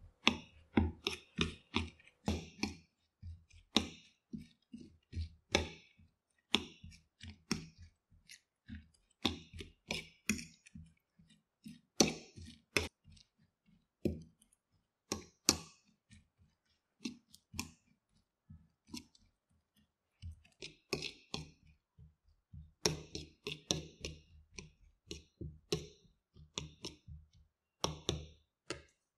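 Metal fork tapping and scraping against a plate while mixing rolled oats with raw egg: a run of irregular clicks with soft thuds, in short clusters with brief pauses.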